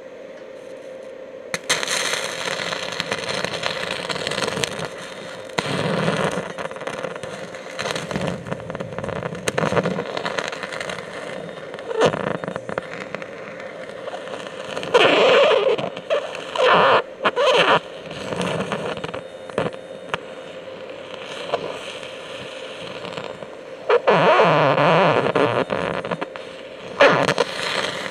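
Carbon arc torch, a graphite gouging rod run on negative polarity from an arc welder, striking its arc about two seconds in and burning on rock with a harsh crackling hiss over a steady hum. It flares into louder sputtering spells twice and cuts out briefly a couple of times.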